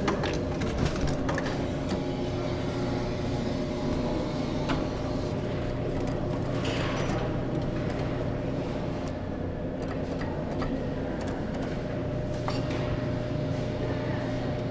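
Claw machine running with a steady mechanical hum, with a few short clicks and knocks over it.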